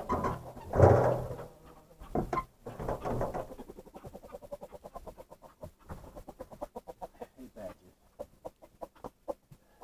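Chickens clucking, loudest about a second in and again between two and three and a half seconds, then a run of quick short clucks.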